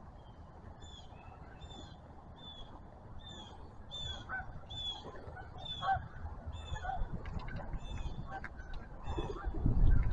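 A bird calling over and over, short high squeaky notes at a steady pace of about one and a half a second.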